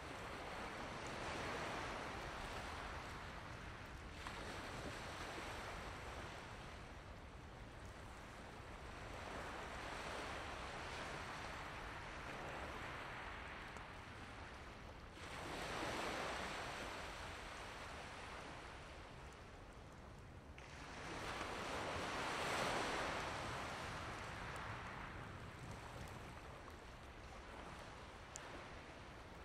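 Outdoor night ambience: a rushing noise that swells and fades every few seconds, with two stronger surges past the middle.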